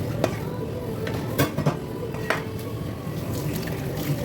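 A few sharp knocks and clinks of a knife and utensils against a cutting board or tray while a fish is being cleaned and butterflied, over a steady wet, watery background.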